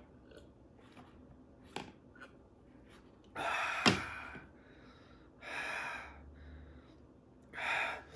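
A man breathing hard through his mouth: three heavy out-breaths about two seconds apart, with a few faint clicks before them. It is his reaction to the burn of Carolina Reaper hot wings.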